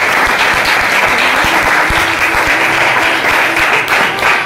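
Group of students applauding: many hands clapping together in a dense, steady round of applause.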